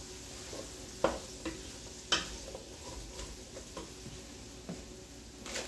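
Diced celery and onions sautéing in oil over medium-high heat, with a faint steady sizzle, as a wooden spoon stirs them and knocks against the pot twice, about one and two seconds in, with a few lighter clicks.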